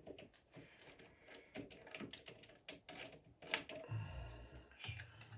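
Small metal parts clicking and tapping irregularly as a tiny screw is handled and fitted into a lathe holder, with a low hum about four seconds in.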